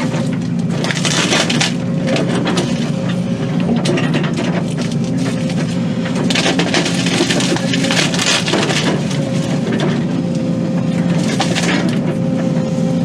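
Excavator's diesel engine running steadily while its bucket crushes and splinters tree wood, with several crunching, cracking bursts over the engine.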